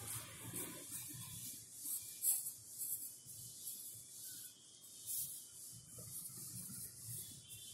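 Pencil scratching on notebook paper as it shades in a drawing: a run of short back-and-forth strokes, the loudest a little over two seconds in.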